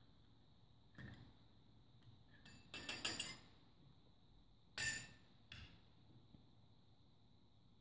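Metal electrode rods of a plug-in water electrolysis tester clinking against drinking glasses as it is set into and lifted out of them. There is a light tap about a second in, a cluster of clinks around three seconds, and a sharper clink near five seconds followed by a smaller one.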